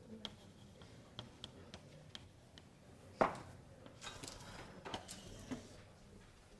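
Chalk writing on a blackboard: a run of sharp taps as figures are written, one loud knock a little past three seconds in, then short scratchy chalk strokes in the second half.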